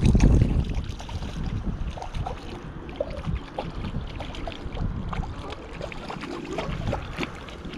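A hooked carp splashing and thrashing at the water's surface as it is drawn in toward a landing net. Wind rumbles on the microphone, loudest just at the start.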